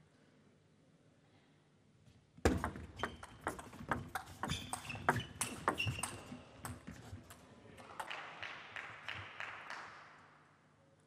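Table tennis rally: the plastic ball clicks rapidly off rubber bats and the table for about five seconds, starting a couple of seconds in. Applause follows and fades before the end.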